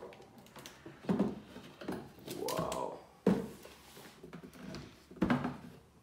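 Large cardboard shoe box being handled: the lid is worked loose, lifted off and set down, with three sharp knocks about one, three and five seconds in and a short rising-then-falling tone near the middle.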